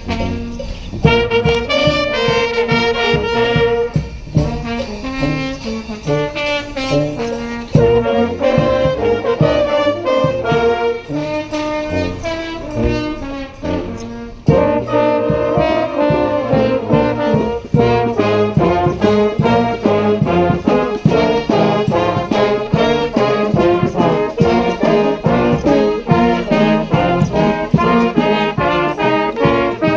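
Street brass band of trombones, trumpets and saxophones with drums playing a loud, driving tune. There is a brief drop about halfway through, then the full band comes back in louder.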